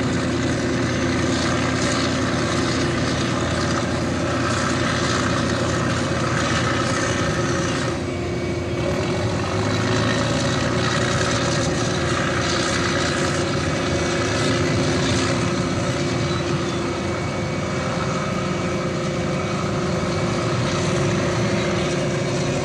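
Heavy diesel earthmoving machinery running steadily under load, a continuous engine drone with a held hum.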